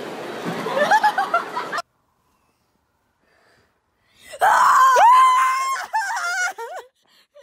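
Crowd hubbub echoing in an indoor pool hall, with a few short rising shrieks about a second in; it cuts off sharply. After a silent gap, a loud, long high scream-like cry starts about halfway through, followed by several shorter cries.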